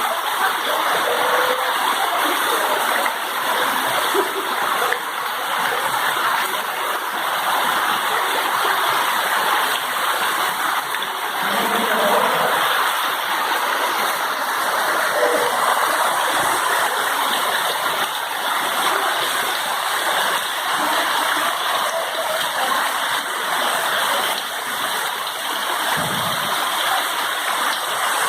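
Heavy rain pouring down, a steady dense hiss of falling water.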